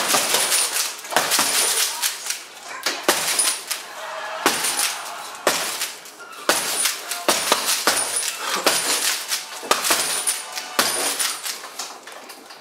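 Boxing gloves striking a heavy bag made of stacked tyres wrapped in plastic film: a fast, irregular flurry of punches, about two or three a second, that stops near the end.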